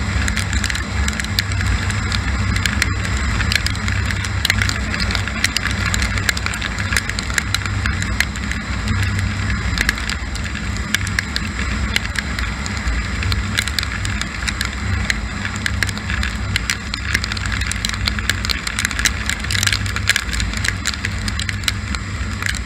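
Kawasaki KLR650's single-cylinder engine running steadily at about 50 mph, under a rush of wind and a constant patter of raindrops ticking on the helmet and camera.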